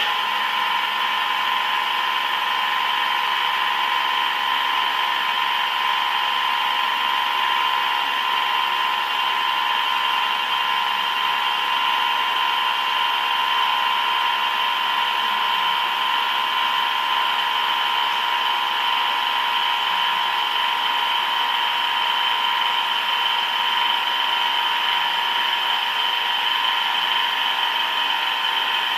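Heavy CNC machine tool cutting metal, running with a steady high-pitched whine over a hiss.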